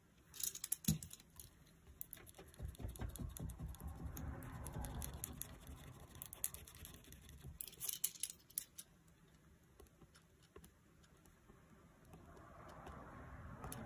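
Faint handling of a paper planner and stationery on a desk: light clicks and taps, clustered about a second in and again about eight seconds in, with stretches of soft rustling and scratching between.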